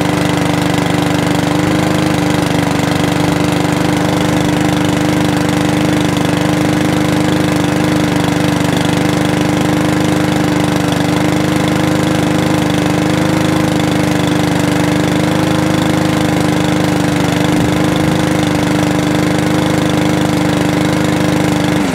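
Two Mountfield rotary lawnmowers' small petrol engines running together at a steady speed, cutting off abruptly at the very end. They are running on fuel stored in them for four months, E10 in one and ethanol-free in the other. The ethanol-free one has just picked up and smoothed out after running rough.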